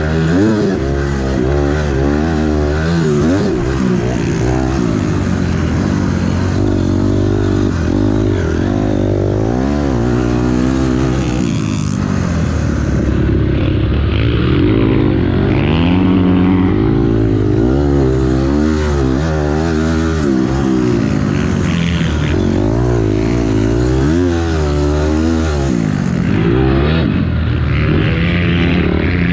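2006 Honda CRF250R's single-cylinder four-stroke engine heard up close from the rider's position, revving up and dropping back again and again as the throttle is worked through ruts and corners on a motocross track, over a steady rushing noise.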